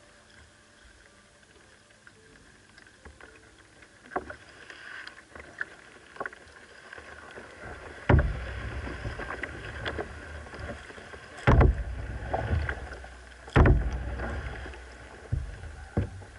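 Plastic kayak being paddled on a pond: quiet water sounds, then a few loud sharp knocks on the hull, each followed by a low rumble of water sloshing, with smaller knocks near the end.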